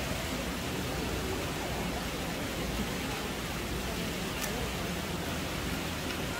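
Steady background hiss with a faint murmur of indistinct voices, and a single small click about four and a half seconds in.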